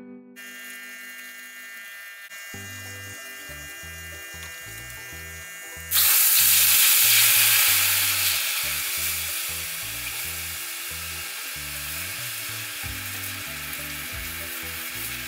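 Sugar syrup boiling down to caramel in a stainless steel wok. About six seconds in a loud sizzle breaks out, then eases to a steady bubbling hiss.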